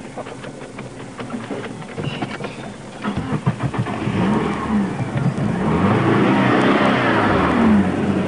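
Clicks and knocks inside a car, then about three seconds in the car's engine runs and is revved repeatedly, rising and falling in pitch and loudest near the end.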